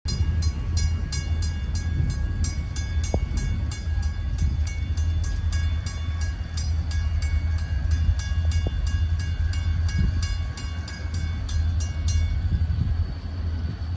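Railroad grade-crossing warning bell ringing in rapid, even strokes while the crossing gates come down; it stops about twelve seconds in, once the gates are fully lowered. A steady low rumble runs underneath.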